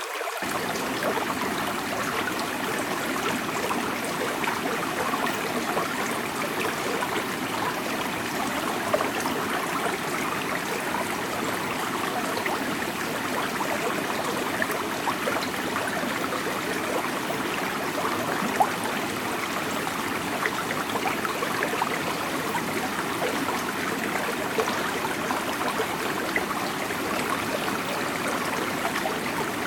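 River water flowing over rocks: a steady rushing babble with the occasional louder splash.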